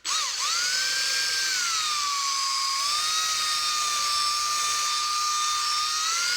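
Small electric drill running at high speed with a high-pitched whine while it drills out a pot-metal rivet on a die-cast toy car. Its pitch drops a little about a second and a half in and rises again near the end.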